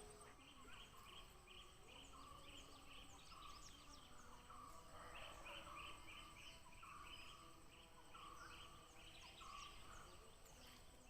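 Faint outdoor wildlife chorus: a steady high insect whine with short chirping calls repeated about twice a second.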